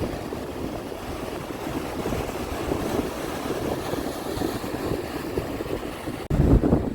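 Sea waves washing steadily, with low wind rumble on the microphone. About six seconds in the sound briefly cuts out, then comes back louder and lower.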